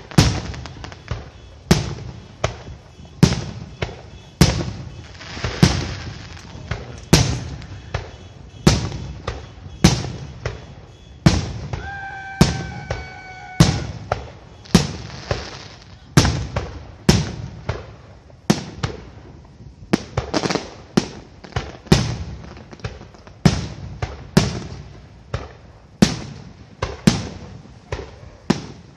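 Aerial fireworks shells bursting in a fast, continuous string of sharp bangs, roughly one to two a second, each trailing off before the next.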